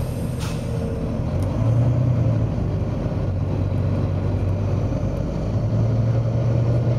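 Volvo B9TL double-decker bus's diesel engine running steadily, with a short hiss of released air from its air system about half a second in.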